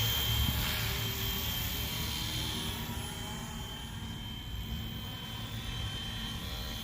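FlyWing FW450 V3 electric RC helicopter in flight: the rotor buzz and a steady high motor whine, getting quieter over the first few seconds as it flies off.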